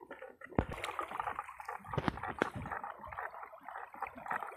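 River water gurgling along the bank, with a few sharp clicks.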